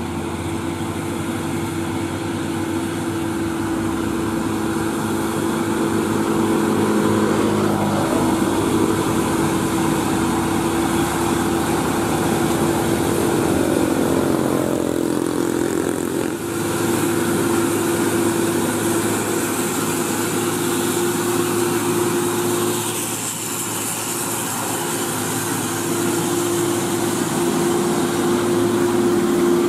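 Diesel engine of a Hino FG 260 Ti truck hauling a loaded semitrailer, running steadily and getting louder as it approaches and passes close by. Its engine note falls and rises a few times along the way.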